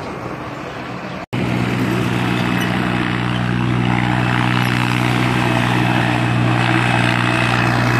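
Diesel tractor engine running steadily under load as it hauls a loaded sugarcane trolley, a steady drone that grows slowly louder as it approaches. About a second in, a brief cut separates it from a noisier stretch of road sound.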